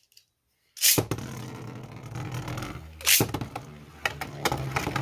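Two Hasbro Beyblade Burst spinning tops launched into a plastic stadium about a second in, then whirring as they spin across the plastic floor, with sharp clacks as they strike each other and the walls, the loudest about three seconds in.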